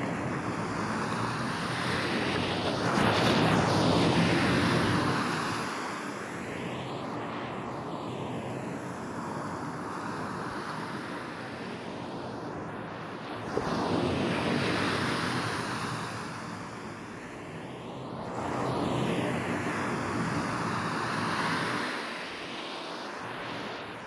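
Sea waves breaking and washing up a sandy beach, surging louder three times. They are processed as 8D audio, panned so the surf seems to sweep around the listener.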